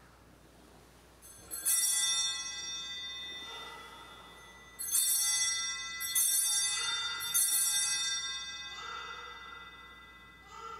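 Altar bells rung four times, each ring starting suddenly with many high bright tones and fading out; the last three follow close together. These are the Sanctus bells marking the elevation at the consecration.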